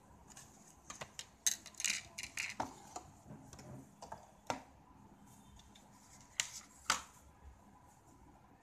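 Handling noises of small hard objects: a quick run of clicks, taps and rustles in the first three seconds, then two sharper clicks about six and a half and seven seconds in.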